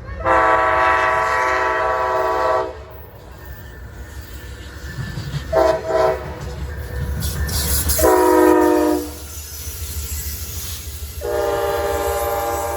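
Amtrak locomotive's multi-chime air horn sounding a series of blasts: a long blast, two quick short toots, then two more longer blasts, over the low rumble of the passing train.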